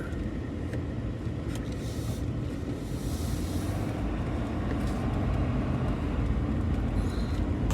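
A loaded truck's engine running steadily under load, heard from inside the cab, with a haze of tyre and road noise that grows slightly louder.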